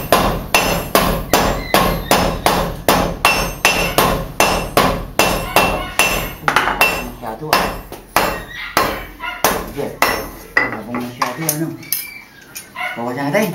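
Hand hammers forging red-hot steel on an anvil: a steady run of ringing metal-on-metal blows, about three a second, which thin out and stop near the end.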